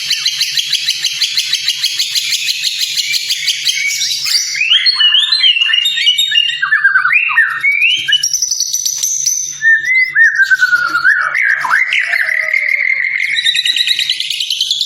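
White-rumped shama (murai batu) song on a tutoring recording. It opens with a rapid, dense buzzing chatter, then breaks into a string of loud, varied whistled phrases that slide up and down in pitch. The fast chatter starts again near the end.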